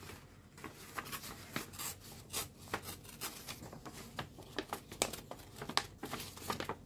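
Sheet of thick printed collage paper being torn by hand and handled, a run of short, irregular crackling rips and crinkles.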